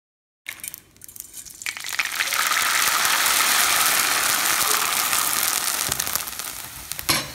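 Chinese vermicelli deep-frying in hot oil: a sizzle that builds up about a second and a half in, holds loud and steady, then eases off near the end, with a sharp click just before the end.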